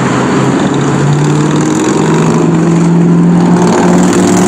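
A road vehicle's engine running close by, a steady low drone.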